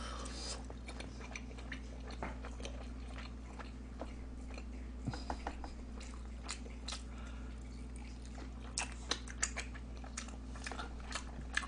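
A person chewing and eating tteokbokki close to the microphone, with scattered small wet clicks and smacks, some closer together in the second half, over a steady low electrical hum.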